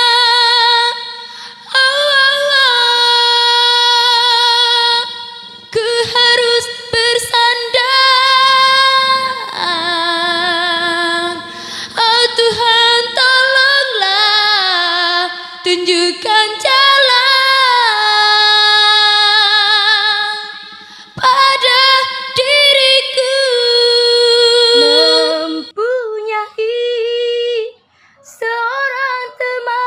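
A young woman singing a cappella, an unaccompanied Indonesian pop ballad with long held notes and wide vibrato, amplified through a handheld microphone. Near the end a different female voice takes over, singing shorter phrases.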